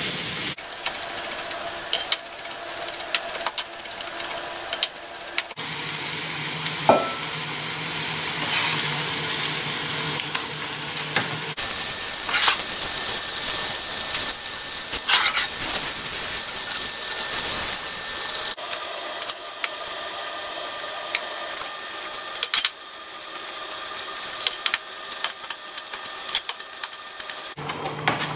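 Hake fillets sizzling in a ridged cast-iron grill pan, with scattered clicks and scrapes of metal utensils against the pan.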